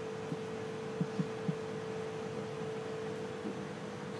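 Steady electrical hum in a small shop, with a few faint clicks about a second in.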